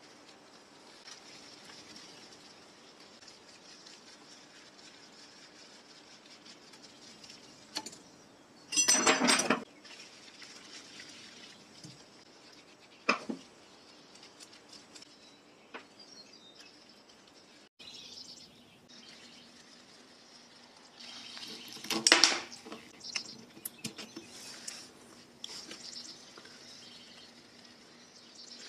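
Metal parts of a Pfaff 1245 sewing machine head clinking and rattling as its thread tension assembly is taken off by hand with a screwdriver. There is a rattle lasting about a second roughly a third of the way in, a single click, and a cluster of clinks about three-quarters through, over a faint steady background.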